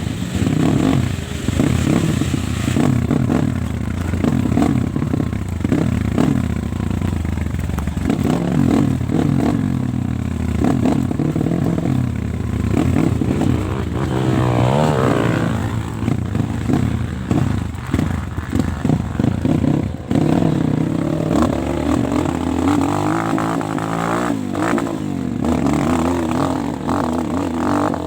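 Trail dirt bike engine revving hard and unevenly under load, its pitch rising and falling as the throttle is worked, as on a steep hill climb, with clattering knocks.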